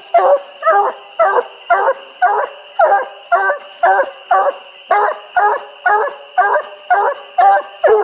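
Nine-month-old bluetick coonhound pup barking steadily at the foot of a tree, about two short barks a second: its tree bark, the sign that it has a raccoon treed.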